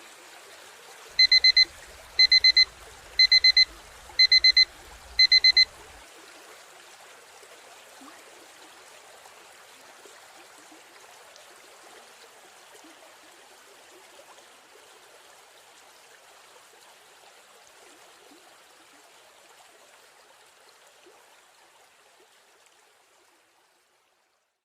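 Flowing river stream running steadily, with an electronic timer alarm going off about a second in: five bursts of four quick high beeps, about a second apart. The stream fades out near the end.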